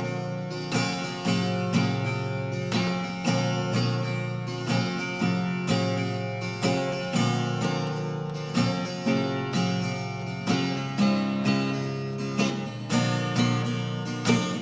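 Acoustic guitar strumming chords in a steady rhythm, about two strums a second: the instrumental intro of an unplugged song.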